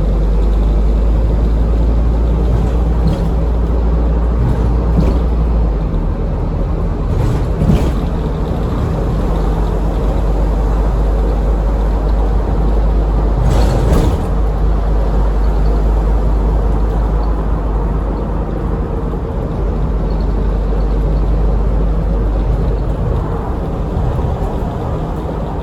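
Scania N230UD double-decker bus's diesel engine and drivetrain running under way, heard from inside the passenger cabin as a steady low rumble that shifts in pitch about six seconds in. A few short rattles or knocks from the bodywork come through at times, the loudest about fourteen seconds in.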